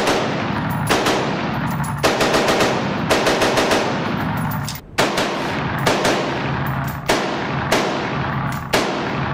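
AR-15 rifle firing a rapid, uneven string of semi-automatic shots, a dozen or more, some in quick bunches and some with short pauses between, each echoing off the walls of an indoor range.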